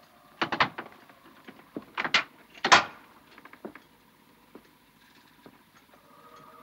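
Wooden door being shut and latched: two knocks about half a second in, two more about two seconds in, and the loudest clack near three seconds in, then a few small clicks.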